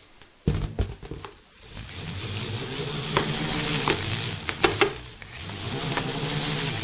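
A ball whirling around the inside of an inflated balloon: a rushing hiss with a low steady hum that builds up about two seconds in, dips briefly near the end and picks up again, with a thump about half a second in and a few light taps.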